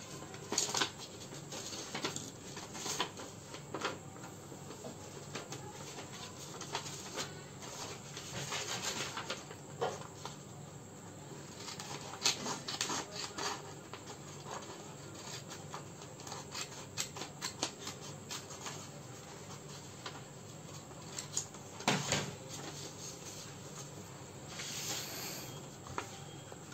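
Sheets of paper being folded, creased and rubbed flat by hand on a wooden tabletop, with scissors cutting through the paper partway through. Irregular crinkles and sharp little clicks.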